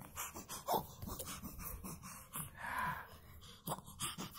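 A baby's soft, breathy little vocal sounds, short and scattered, with light rustling and small knocks.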